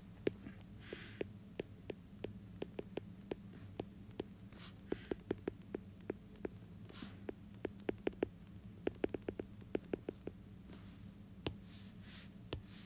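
Stylus tip tapping on a tablet's glass screen while handwriting: a faint, irregular run of light ticks over a steady low hum.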